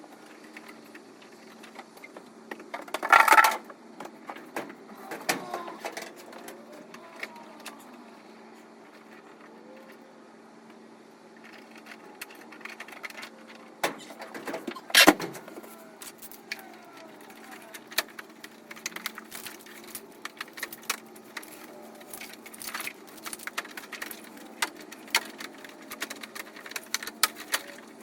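Scattered clicks, knocks and rattles of hands working a wiring harness free in an engine bay: plastic connectors and clips being handled, and tools clinking. There is a louder clatter about three seconds in and a sharp knock about fifteen seconds in, over a faint steady hum.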